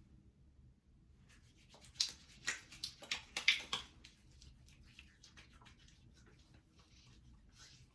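Hands rubbing and patting after-shave balm onto the face and between the palms. There is a quick run of louder strokes about two to four seconds in, then fainter rubbing.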